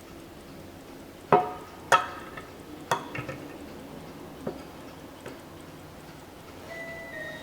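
A small alarm clock, a mid-century Swiza key-shaped model, giving sharp clicks and knocks at uneven intervals; the three loudest come within the first three seconds, then fainter ones follow. Music with held notes stepping downward begins near the end.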